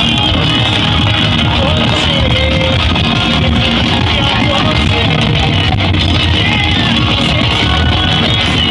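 Loud music with singing and guitar, played at high volume over a competition car sound system, with a heavy bass and a steady, unbroken loudness.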